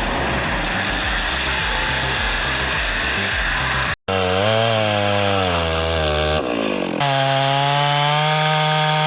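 Wood-cutting machinery at work: about four seconds of rough, noisy grinding, then after an abrupt cut an engine-driven saw running. The saw's pitch rises and falls, then after another cut holds steady.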